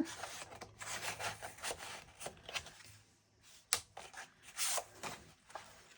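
Paper and cardstock rustling, sliding and rubbing as the pages and pockets of a handmade paper album are handled, with a few short sharp snaps and taps.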